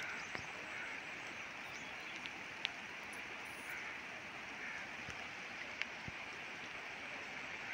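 Steady rushing of floodwater flowing across fields, with a few sharp ticks.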